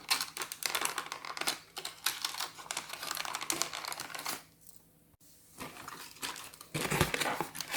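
Handling noises from toy packaging as a small toy pram is pulled free of its box: rustling and crinkling with many small clicks and taps, broken by about a second of silence near the middle.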